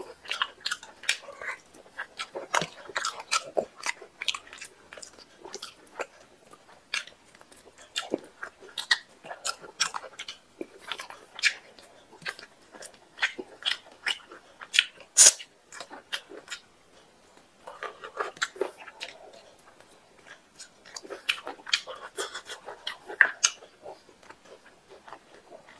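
Close-up mouth sounds of eating chicken curry and rice by hand: chewing, lip smacks and sharp wet clicks at an irregular pace.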